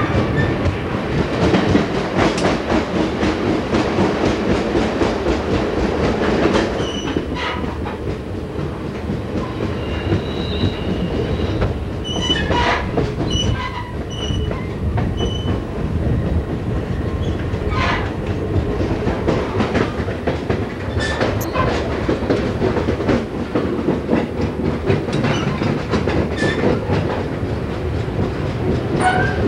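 Passenger train heard from on board, its wheels clicking over the rail joints above a steady rumble. A few brief high squeaks come from the wheels in the middle as the train rounds a curve.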